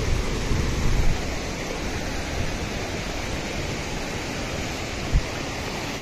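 Steady rushing of a mountain waterfall and the rocky stream below it, with a few low bumps in the first second and a single short thump just after five seconds.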